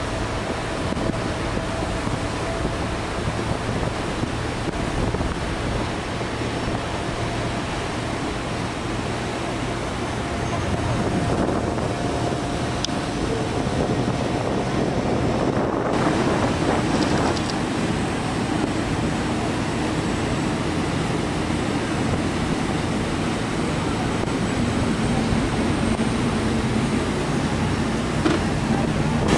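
Expedition ship under way: a steady low engine hum under the rush of churning wake water, with wind on the microphone.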